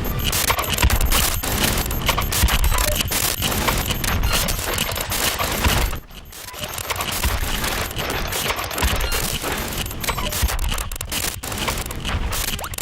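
Experimental electronic noise music played live on laptops: dense, crackling, clicking noise with deep rumble underneath. It drops out abruptly about six seconds in, then swells back.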